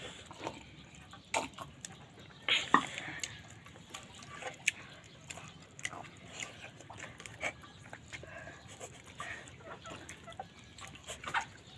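Close-up eating sounds of a person chewing chicken and dal curry: irregular chewing and lip-smacking clicks, loudest about two and a half seconds in.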